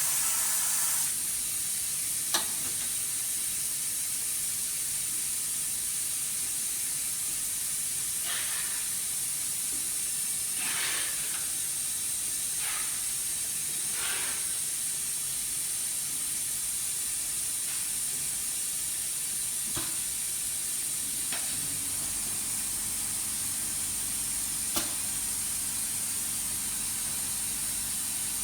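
A steady high-pitched hiss with a few faint clicks scattered through it.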